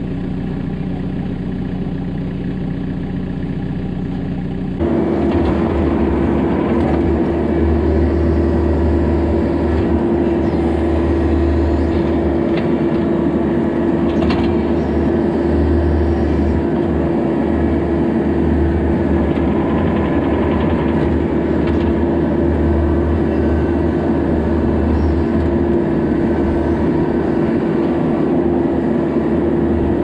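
Bobcat E26 mini excavator's diesel engine running while it digs. About five seconds in the engine comes up to a higher, louder throttle and then holds steady with a constant hum and low rumble.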